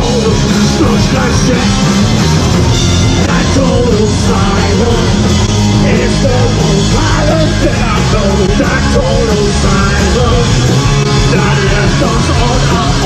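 Rock band playing live at full volume, heard from within the crowd beside the stage: a singer over electric bass and guitars.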